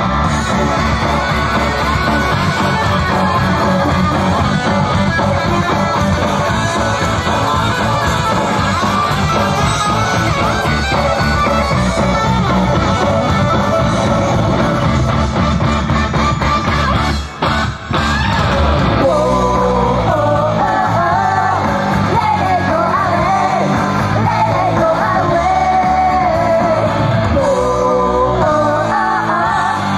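An idol group singing a rock song live over guitar-driven backing, with shouts mixed in. The music drops out briefly twice a little past halfway, then the sung melody comes through more clearly.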